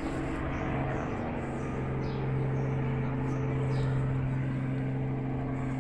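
A steady low engine drone, with small birds chirping in short high notes over it.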